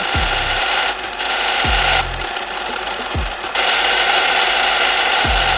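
Drill press cutting a hole through a steel channel, the twist bit grinding with a steady high whine that eases off briefly about a second in and again for a second and a half in the middle. A low beat of background music runs underneath.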